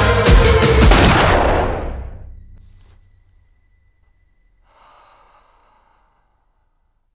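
Loud electronic soundtrack music with a rising whoosh that fades out within the first three seconds. Then near silence, broken about five seconds in by a woman's faint sigh-like breath as she cries, lasting about a second.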